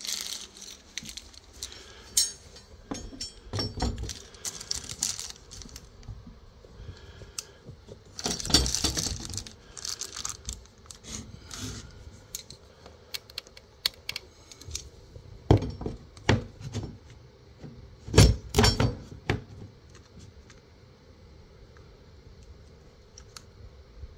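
White wire over-the-door ironing board holder clinking and rattling as it is handled and hung, with scattered sharp knocks and clatters against the door. Louder clusters of knocking come about a third of the way in and again in the last third.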